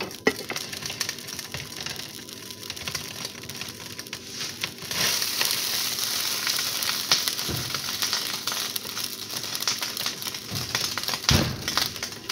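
Homemade teriyaki sauce bubbling in a large pan on the stove while a spatula stirs it, scraping and clicking against the pan with a few duller knocks. The bubbling hiss gets louder about five seconds in.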